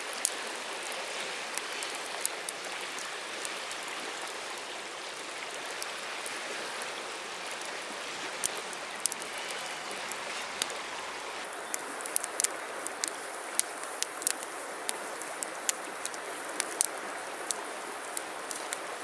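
Steady rush of a river flowing over a gravel bed, with sharp crackles and pops from a wood campfire that come thick and fast in the second half.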